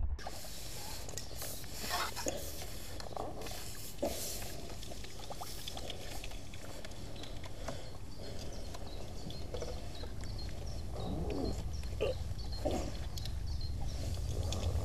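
Steady wind rumble on the microphone, with scattered small clicks, knocks and rustles from a landing net and fishing tackle being handled.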